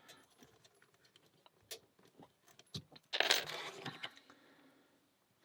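Small metallic clicks and taps of lock picks and a tension tool working a 20 mm Alpha 1000 padlock, then, about three seconds in, a louder metallic rattle lasting about a second.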